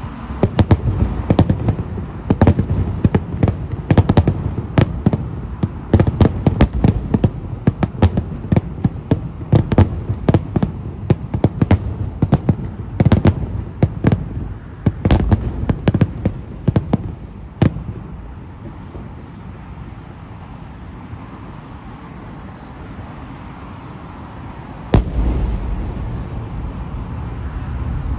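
Finale barrage of aerial firework shells bursting: rapid sharp bangs, several a second, for about eighteen seconds. After a lull of several seconds comes one more big bang near the end, followed by a low rumble.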